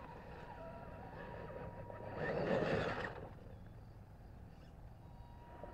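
Electric RC rock crawler's motor and drivetrain working as the truck climbs over rocks and a tree root, with a faint steady whine and one louder burst of drive noise about two seconds in.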